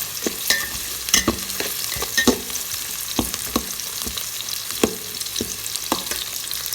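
Garlic, onion and ginger sizzling gently in oil over low heat, stirred with a utensil that scrapes and taps against the pan in irregular clicks.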